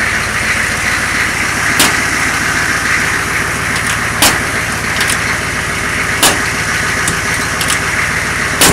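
A truck's 6.2 engine running on high idle after a cold start, a steady drone. Several sharp clicks and knocks sound over it, the loudest near the end.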